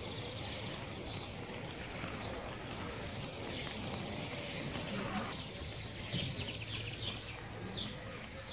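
Birds chirping in short calls over steady outdoor background noise.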